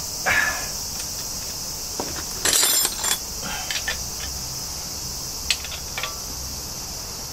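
Intermittent metallic clinks and rattles of hand tools on the Honda Dream 50's oil drain bolt as it is done up. The loudest is a short clattering cluster about two and a half seconds in. Steady insect chirring runs underneath.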